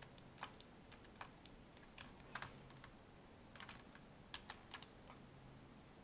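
Computer keyboard keys pressed in faint, irregular short clicks, some in quick little groups, as editing shortcuts are entered.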